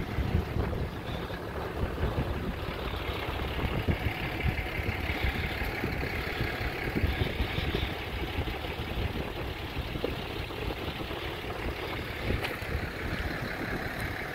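Wind buffeting the microphone: a steady rushing rumble with uneven gusts.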